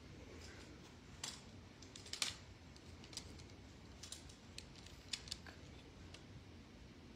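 Scattered light clicks and taps, irregular and about one a second, over a low steady room hum.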